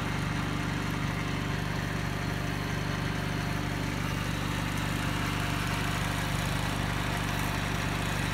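Electric motor fitted to an old Renault tractor's drivetrain, running steadily with an even hum.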